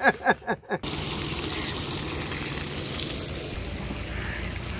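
A few short bursts of a man's voice, then a steady rushing noise with a faint low engine hum.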